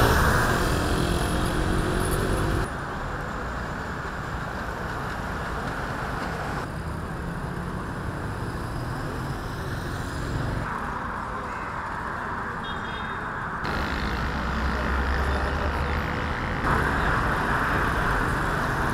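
Steady outdoor ambient noise with no clear single source, its character changing abruptly every three or four seconds as one background gives way to another.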